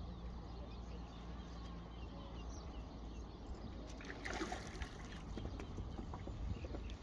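Outdoor pond-side ambience: water lapping under a steady low rumble, with a short rustling burst about four seconds in.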